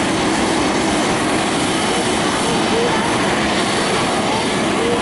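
Distant jet engine noise from a Boeing 747-400's four turbofans at takeoff thrust on the takeoff roll: a steady, even rush with no change in level.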